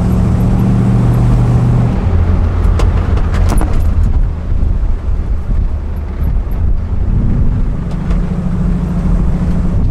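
1959 Chevrolet Biscayne's original 283 two-barrel V8 running while the car drives, heard from inside the cabin. The engine note drops about two seconds in and rises again near the end, with a few light clicks around a third of the way through.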